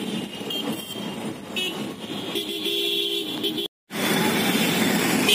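Busy street traffic of motorbikes and cars heard from a moving two-wheeler, with a vehicle horn honking for about a second midway. The sound drops out for a moment, then the traffic noise comes back louder.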